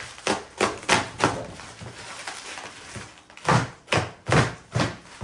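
Box cutter slicing and ripping through plastic wrap on a plastic storage crate in short strokes: a quick run of four or five, a pause of about two seconds, then four more.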